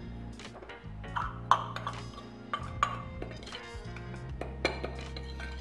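A stainless steel bowl clinking and knocking against a glass mixing bowl several times as seasoning powder is tipped and tapped out of it, with background music.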